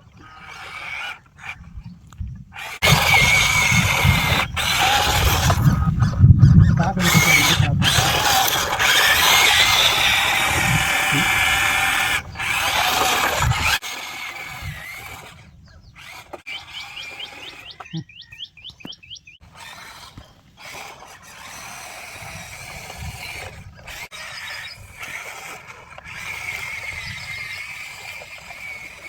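Electric motors and gears of RC construction models (a Huina 8x8 dumper truck and a dozer) whining as they work. There is a louder, noisier stretch of grinding and rumbling from about three to fourteen seconds in, then quieter high whining with scattered clicks.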